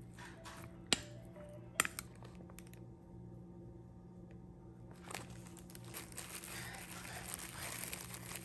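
Two sharp clacks about one and two seconds in, a plastic rice paddle knocking against a ceramic bowl of cooked rice. From about five seconds there is building plastic crinkling as gloved hands handle packaging and plastic wrap. Soft background music plays throughout.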